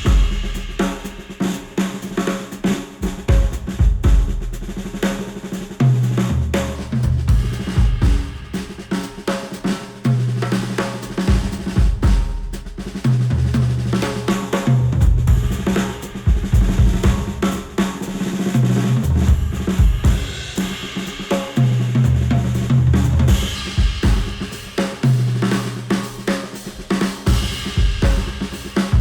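Instrumental music with a full drum kit (kick, snare, hi-hat, cymbals) over a deep bass line of held notes, played back through headphones and picked up by microphones at the earcups.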